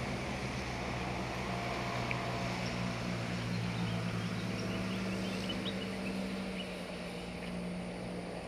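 Outdoor background noise: a steady low mechanical hum with a few faint short chirps, and the hum eases slightly near the end.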